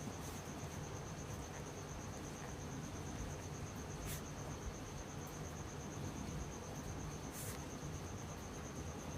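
A cricket trilling steadily, one high, thin, finely pulsed note, over a low hum, with a few faint clicks.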